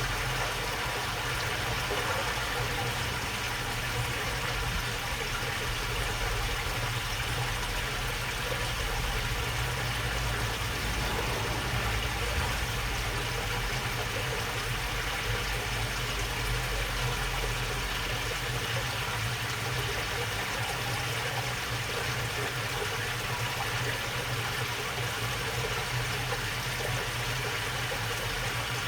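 Steady babbling of water flowing along a small well-fed channel, with a steady low rumble underneath.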